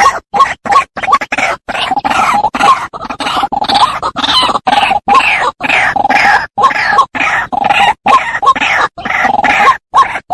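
White-breasted waterhen calling: a continuous run of harsh, croaking 'ruak-ruak' notes, several a second, broken by abrupt short gaps.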